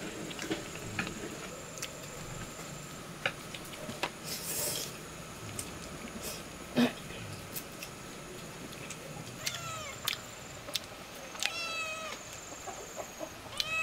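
An animal calling three times in the second half, each call short and arching up and down in pitch, among scattered clicks and knocks; the loudest sound is a sharp knock about seven seconds in.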